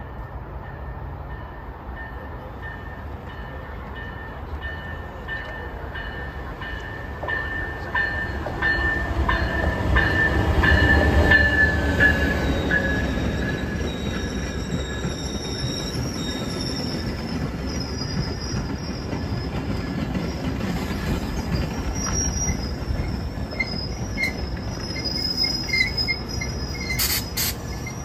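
A train rolling past with its wheels squealing on the rails in several high, steady tones over a low rumble. It is loudest about ten to twelve seconds in, and a couple of sharp clicks come near the end.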